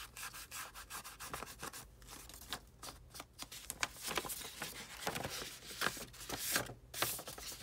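Ink blending tool's pad rubbed over paper in quick, irregular back-and-forth strokes, inking along the fold lines to age the sheet.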